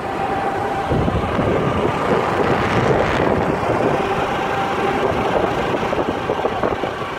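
Wind noise on the microphone with engine and tyre noise from a vehicle moving along a road at speed, steady throughout, with a faint steady whine.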